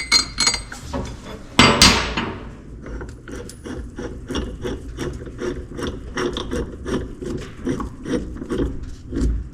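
A few sharp metal clanks in the first two seconds, then a ratchet wrench clicking steadily, about three to four clicks a second, as it turns a wheel-bearing press tool.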